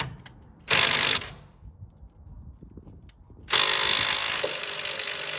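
A power impact wrench runs in two bursts on a stubborn anti-roll bar link nut, undoing it. There is a short half-second burst about a second in, then a longer burst of about three seconds starting halfway through.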